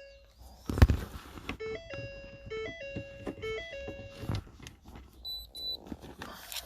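A simple electronic jingle of plain beeping tones stepping up and down between two or three notes, broken by a loud thud about a second in and a few more knocks later.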